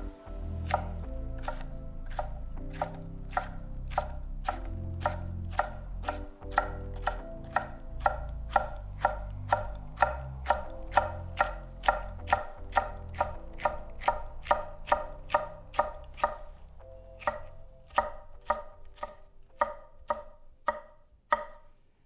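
Slicing strokes of a carbon-steel gyuto through red bell pepper, each ending in a knock on an end-grain wooden cutting board, about two a second. Quiet background music runs underneath and fades out near the end.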